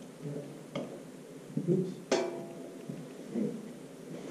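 Golf gear being handled: a light tap, then about two seconds in a sharper knock with a short ring, followed by a muffled "Oops".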